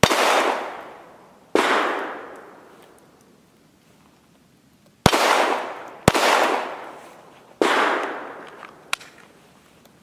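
Five 9mm shots from a Glock pistol: two about a second and a half apart, then after a pause three more in quicker succession. Each shot echoes and fades over a second or so, and a lighter sharp click comes near the end.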